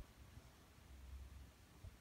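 Near silence: quiet room tone with a faint low rumble.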